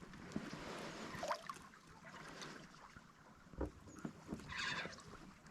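Faint sounds of playing a small hooked fish from a kayak: scattered light clicks and knocks over a soft hiss, with a short rush of water noise about four and a half seconds in.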